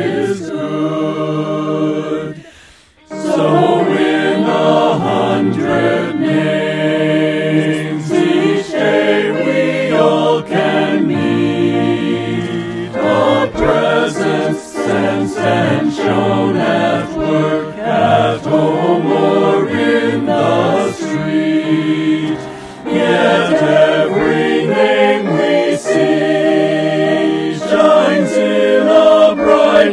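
Choir singing a hymn, breaking off briefly about three seconds in before going on.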